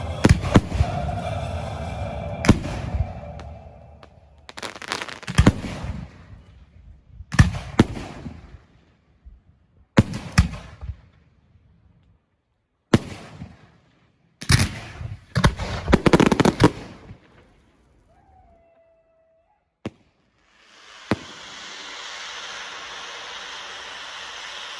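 Fireworks display: clusters of sharp bangs and crackling shell bursts, each a second or two long, separated by brief silences. About three-quarters of the way through, a steady hiss takes over.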